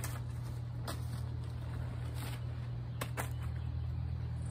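Crumpled packing paper rustling and crinkling in a few short bursts as it is pulled out of a cardboard box, over a steady low motor-like hum.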